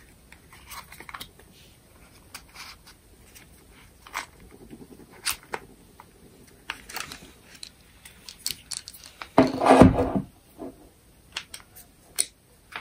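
Scattered clicks and plastic rattles of a Greenworks G24RO cordless trim router's plastic housing and wiring being handled as its brushless motor and controller assembly is pulled out of the housing, with one louder scraping rattle lasting under a second about nine and a half seconds in.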